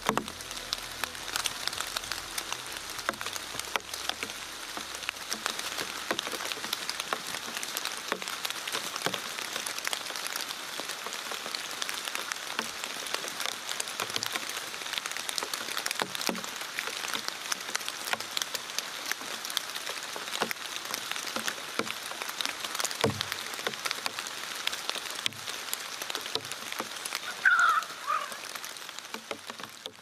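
Steady rain falling on fallen leaves, a dense patter of many small drops with scattered louder drips. A brief high-pitched sound stands out near the end.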